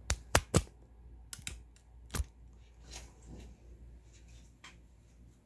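A series of sharp clicks: three loud ones in quick succession at the start, three more within the next two seconds, then only faint ticks.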